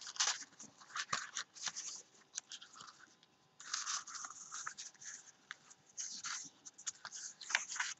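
Sheets of craft paper being handled, rustling and sliding on a wooden table in a run of short scratchy rustles, with a longer rustle about three and a half seconds in.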